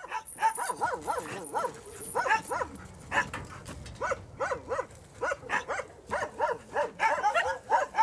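Tethered guard dog barking over and over in quick succession, about three short barks a second.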